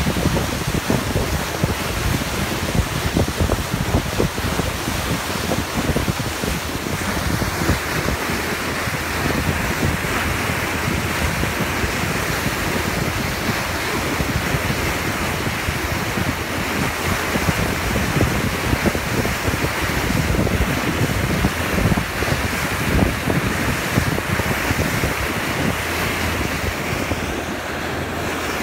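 A boat's bow wave rushing and hissing as the hull cuts through the sea, with wind buffeting the microphone in a low, uneven rumble.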